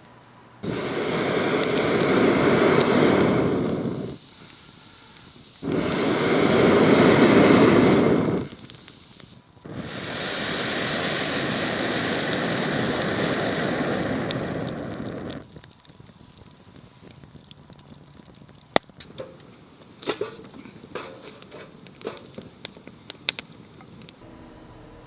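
Food sizzling hard in a hot pan over a camp fire, in three loud stretches, then dying down to scattered pops and crackles.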